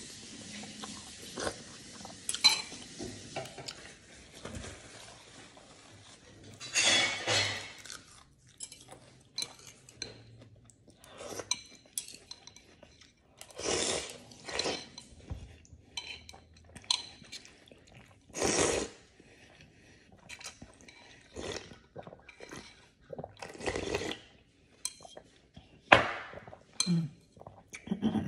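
Someone eating noodle soup: several long slurps of noodles and broth, with chopsticks and a spoon clinking lightly against the bowl in between.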